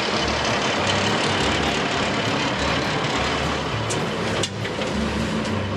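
Heavy diesel earthmoving equipment running steadily at work, with a brief dip about four and a half seconds in.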